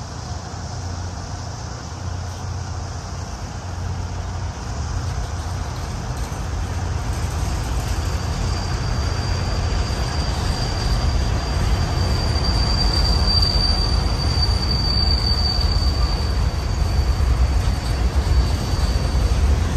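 Freight cars rolling past, a steady low rumble of wheels on rail that grows louder. About eight seconds in a thin, high, steady wheel squeal sets in, strongest near the middle, and fades out near the end.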